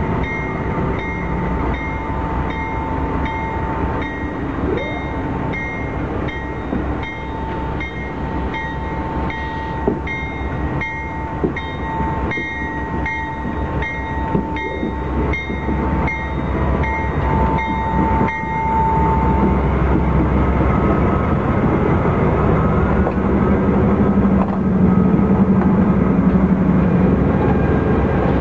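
Amtrak P42DC diesel locomotive's bell ringing steadily, about one and a half strikes a second, as the train starts moving; the bell stops about eighteen seconds in. The locomotive's 16-cylinder diesel then grows louder as it passes close by.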